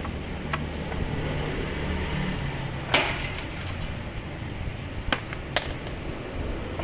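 A few sharp metallic clicks and clinks of hand tools on the scooter's front-end parts, the loudest about three seconds in with a brief ring, over a steady low hum.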